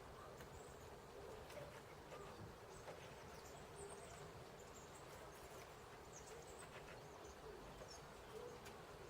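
Faint, scattered high-pitched chirps and calls of small songbirds at a winter feeder, with a few light ticks, over a quiet steady hiss.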